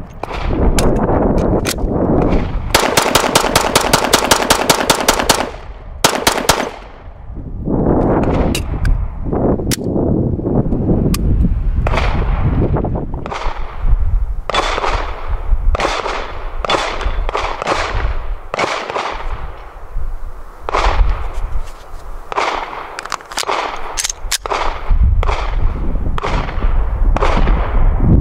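Steyr M9-A2 pistol fired again and again. A fast, even string of shots comes a few seconds in, then shots at a steadier pace of about one a second, each trailing off in an echo.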